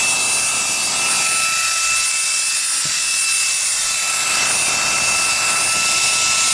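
Reikiya HV-C11 cordless handheld vacuum running: a steady high motor whine over a rush of air that rises and falls a few times. The owner feels its suction is already dropping even though the battery shows 60%.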